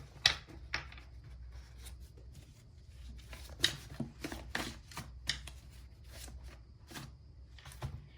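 A deck of tarot cards being shuffled by hand: a run of irregular sharp snaps and slaps.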